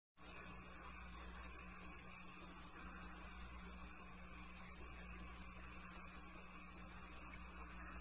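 Night-time countryside ambience: a chorus of crickets chirping, high-pitched and pulsing evenly several times a second. A brief fainter chirp sounds about two seconds in and again near the end.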